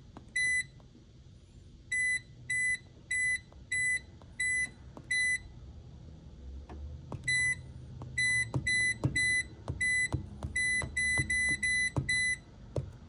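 Speed Queen commercial coin-op washer's control panel beeping once for each button press: short, identical high beeps, about twenty in all, with a pause about five seconds in and then two or three a second. These are keypad confirmation beeps as the vend price is stepped down in programming mode.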